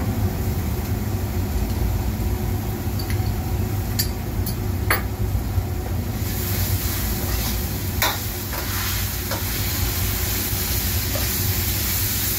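Noodles, vegetables and shrimp stir-frying in a hot wok: steady sizzling, with a few sharp clicks of a metal ladle against the wok. The hiss grows louder about halfway through.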